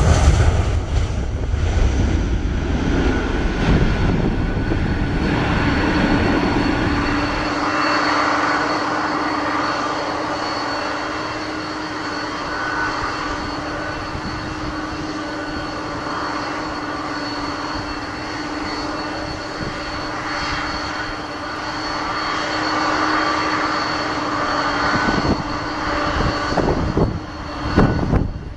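Airbus A320 jet engines at take-off thrust, a loud low rumble as the airliner lifts off, cut off abruptly about seven seconds in. Then an Embraer 190's GE CF34 turbofans whine steadily on the landing approach with a held tone, and a few sharp gusts or thumps come near the end as it rolls out on the runway.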